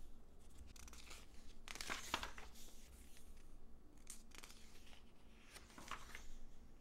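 Glossy magazine pages turned by hand: a few faint page flips, rustling and crinkling.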